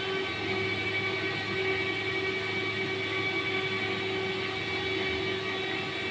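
Steady roar of a lit gas wok burner and a kitchen exhaust hood fan running, with several steady hum tones over the noise.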